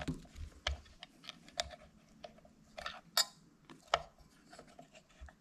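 Small metal clicks and taps, with light scraping, as a circlip is pried off a snowmobile recoil starter's centre post and the starter's metal and plastic parts are handled. The clicks come irregularly, the sharpest a little under a second in and again around four seconds in.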